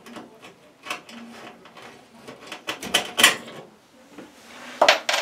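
Irregular clicking and knocking from a cordless drill and a metal light fixture being handled while the fixture is unscrewed from the wall, with a louder clatter about three seconds in and again near the end.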